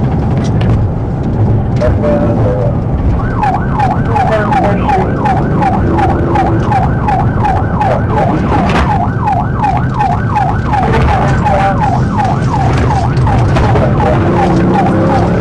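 Police car siren in a fast yelp, about three sweeps a second, starting a few seconds in and fading near the end, over the steady engine and road noise of a patrol car in pursuit.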